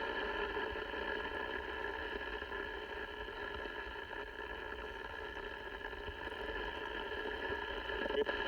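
Cobra 29XLR AM CB radio's speaker putting out steady receiver static between transmissions, a band-limited hiss with faint steady tones running through it.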